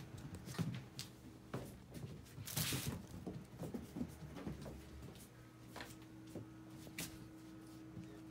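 Scattered light knocks and footsteps with a brief rustle about two and a half seconds in, over a steady low hum.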